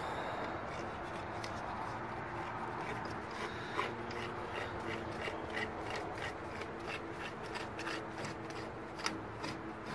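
Ratchet and spindle socket working the rear axle's spindle lock nut loose: a run of light metal clicks, about two a second from about four seconds in, over metal rubbing.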